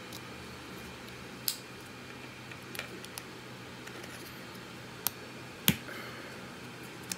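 Sharp plastic clicks as the segments of a 3D-printed foldable shark are folded together and pressed into place: about half a dozen separate clicks, the loudest about five and a half seconds in, over a steady low hum.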